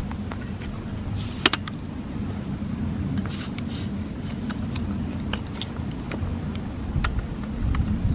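Steady low rumble of wind on the microphone, with a few sharp clicks and clinks as a tripod's legs and head are set up and adjusted.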